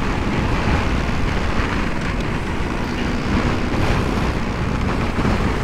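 BMW R1100GS motorcycle on the move at a steady speed: its air-cooled flat-twin boxer engine running under a steady rush of wind and road noise.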